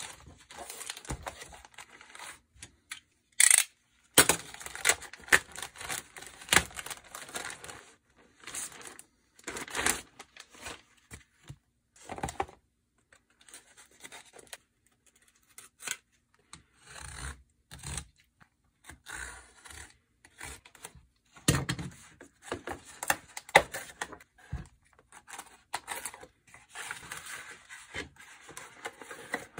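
A package being opened by hand: a plastic poly mailer rustled and torn open, then a utility knife slitting packing tape and cardboard box flaps scraped and folded back. The rustling, tearing and scraping come in stops and starts, with sharp loud tears about three and a half seconds in and again about twenty-one seconds in.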